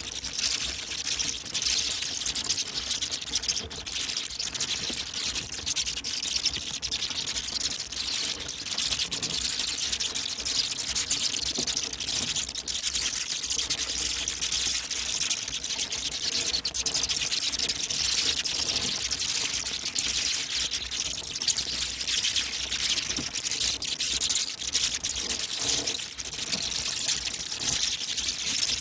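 Many bats squeaking and chittering together: a dense, unbroken crackle of high-pitched clicks and squeaks.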